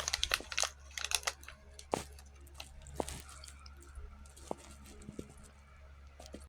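Close rustling and crackling with scattered sharp clicks, dense for the first second and a half and then sparser, over a low steady rumble.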